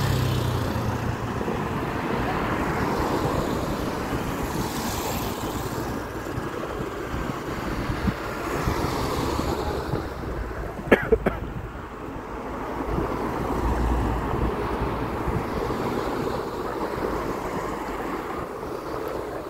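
Steady din of road traffic passing close by, mixed with wind buffeting the phone's microphone. A brief sharp clatter comes about eleven seconds in, and a deeper low rumble swells a couple of seconds later.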